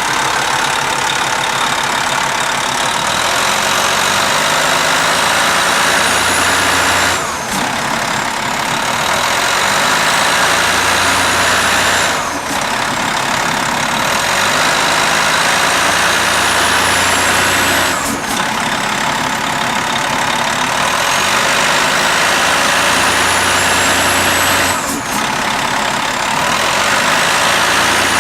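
A large vehicle engine is revved up and let back down about five times. Each time a high whine climbs for several seconds, then drops off suddenly. The engine is being run to show bad motor mounts.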